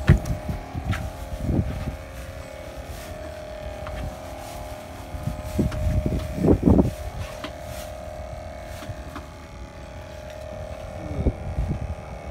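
Fishing boat's engine running steadily with an even hum, under low rumbling and knocks from the phone being handled. A louder thump or bump about six and a half seconds in.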